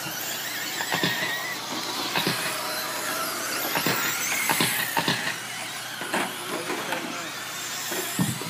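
Radio-controlled short course trucks racing on a dirt track, their motors giving high whines that rise and fall in pitch over a steady hiss, with scattered sharp clicks and knocks.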